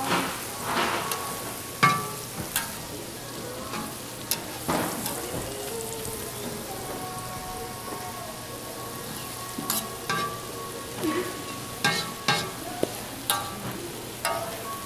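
Food sizzling on a street-toast griddle, with sharp clicks and scrapes of cooking utensils every second or two.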